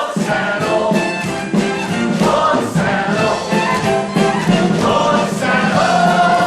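A musical-theatre song number: a chorus of voices singing with instrumental accompaniment, moving through a series of held notes.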